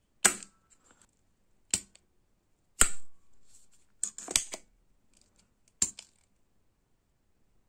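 Hand-held spring-loaded desoldering pump (solder sucker) with an aluminium body and plastic top, its plunger being cocked and released: a series of about six sharp clicks and snaps, a second or so apart.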